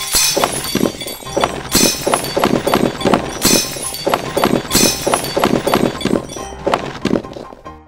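Earthquake collapse effects: a run of irregular crashes, thuds and clattering debris, with a few bright smashing bursts like breaking glass. It dies away near the end.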